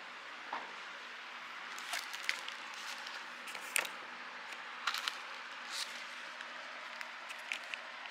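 Plastic shrink-wrap on a vinyl LP sleeve crinkling, with scattered sharp crackles as the record is picked up and handled, over a steady hiss.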